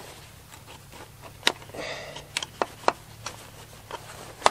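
Sharp clicks and light knocks, about half a dozen spaced unevenly, from the chain brake handle and plastic clutch cover of a Husqvarna 281 chainsaw being worked by hand during disassembly of the brake. A low steady hum runs underneath.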